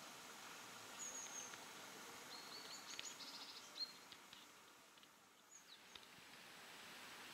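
Faint birds chirping over a low, steady background hiss: a few short, high calls and a quick rapid series of notes about three seconds in.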